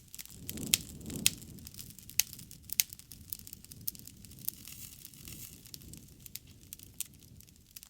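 Wood fire crackling: irregular sharp pops and snaps over a soft low rumble of the burning fire, the rumble swelling briefly about a second in.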